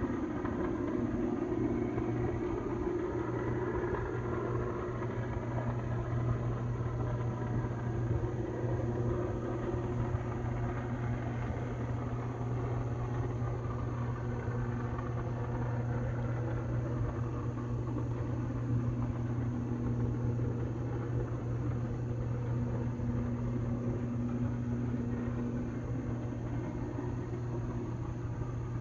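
Burning electrical substation: a steady low rumbling hum with a buzzing tone, even throughout with no bangs.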